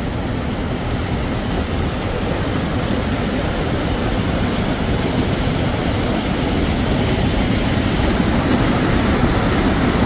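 Mountain stream rushing over boulders: a steady, loud wash of whitewater that grows a little louder towards the end.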